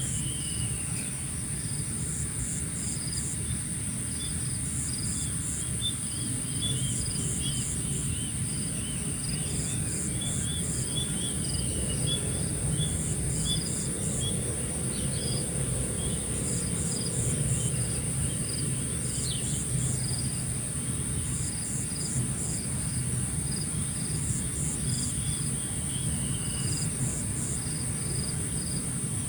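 Insects droning steadily at a high pitch, with cricket-like chirps in short groups of pulses repeating every second or two. Runs of small bird chirps come and go over a low steady rumble.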